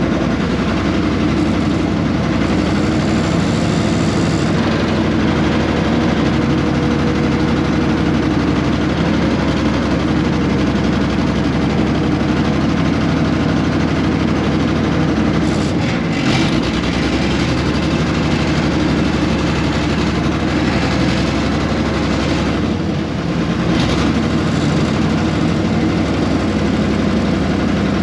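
Air-cooled Deutz diesel engine of a 1970s RM.80 excavator running steadily, its note briefly changing about 16 seconds in and again about 23 seconds in.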